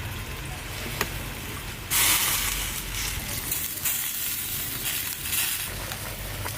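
Food frying in a hot pan: a loud sizzle breaks out suddenly about two seconds in and goes on for several seconds before easing off, with a light knock about a second in.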